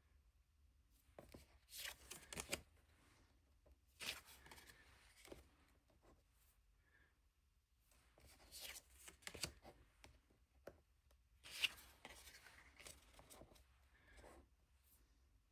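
Tarot cards being handled and shuffled: soft card slides and flicks in a few short bunches, with quiet pauses between.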